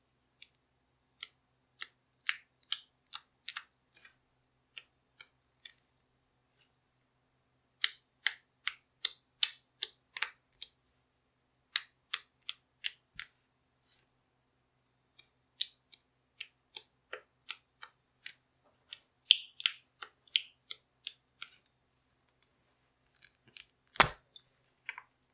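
Heart-stamp marker pressed repeatedly onto clear slime: runs of short, sharp taps, a few a second, broken by brief pauses. There is one heavier knock near the end.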